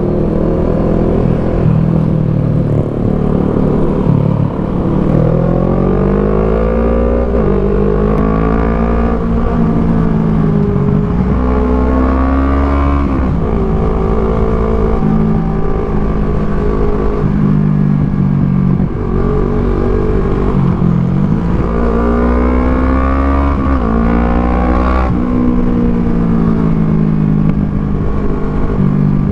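Kawasaki Z650's parallel-twin engine through an Orion aftermarket full exhaust, riding and accelerating: the engine note climbs in pitch and drops sharply at each upshift, with a few stretches held at steady revs.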